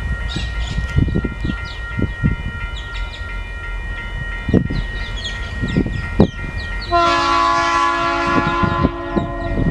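The horn of a Tasrail diesel locomotive hauling a coal train sounds one multi-note chord, starting sharply about seven seconds in and held for about two and a half seconds as the train approaches the crossing. Underneath, a steady high ringing tone from the level-crossing warning bell runs throughout, with bird chirps.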